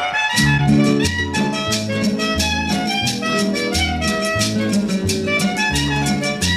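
Latin dance music in salsa style starts about half a second in, with a bass line, stacked instrument notes and steady percussion strokes.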